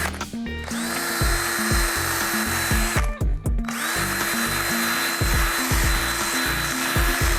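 Power drill spinning a wire brush, starting up and running for about two seconds, stopping, then starting again about four seconds in and running on. Background music with a steady beat plays underneath.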